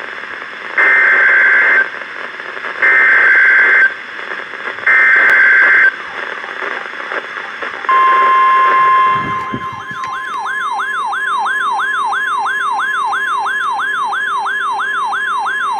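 Emergency Alert System signals over NOAA Weather Radio for a tornado warning: three one-second bursts of screechy SAME digital header tones, then the steady weather radio alert tone, joined about two seconds later by a warbling siren-like sweep repeating about three times a second, all over faint radio hiss.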